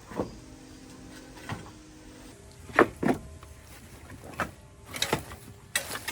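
Irregular sharp knocks and clanks of the old circular saw and its parts being handled. There are about eight hits, with the loudest pair about halfway through.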